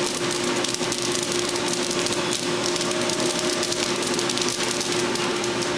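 Diedrich drum coffee roaster running, with a steady motor hum and the dense rattle of freshly roasted beans being turned by the stirring arms of its cooling tray.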